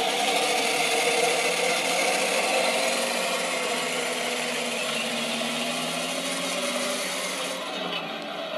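Torro Tiger 1 radio-controlled model tank driving: its Clark TK24S sound unit plays simulated tank engine sound through a small speaker, mixed with the whir of the drive gearboxes and tracks. It gets gradually quieter, and the high hiss drops away near the end.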